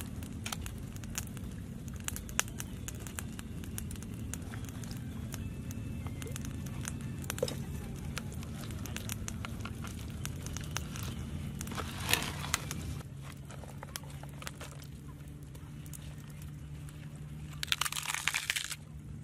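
Hands rubbing salt and butter into a raw whole chicken in a plastic tub: a run of small rubbing, rustling and crackling noises, with a louder crinkling rustle near the end as leafy greens are handled. A steady low hum runs underneath.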